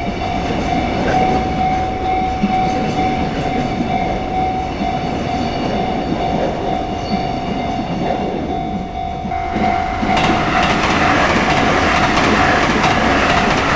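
Japanese railway level crossing's electronic warning bell ringing steadily while a train passes over the rails. About nine and a half seconds in, the train noise grows louder and brighter.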